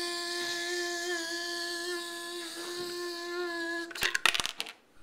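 A child's voice humming one long, steady note for about four seconds, with a slight waver. Near the end comes a brief cluster of sharp knocks.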